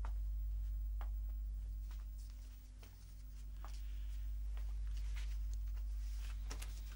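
Quiet indoor room tone over a steady low hum, with a few faint scattered clicks and rustles.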